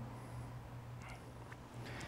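Quiet outdoor ambience: a steady low hum with a few faint, short bird chirps.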